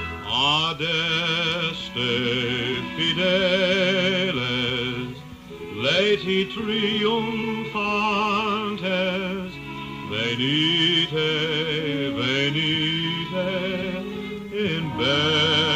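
Music playing back from a cassette on a Harman Kardon 2000 cassette deck: a singer holding long notes with heavy vibrato, over an accompaniment.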